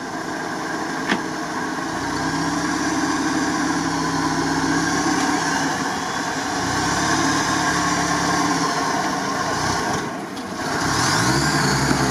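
UAZ-469 off-roader's engine running under load as it climbs a muddy bank, its front wheels spinning and throwing dirt. The engine eases off briefly about ten seconds in, then picks up again.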